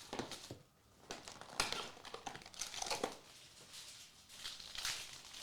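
Foil trading card pack wrappers being torn open and crinkled by hand, an irregular crackling rustle.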